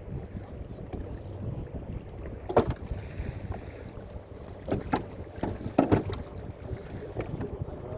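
A small fishing boat sitting on the water: a steady low wash of water and wind, broken by about five sharp knocks from about a third of the way in.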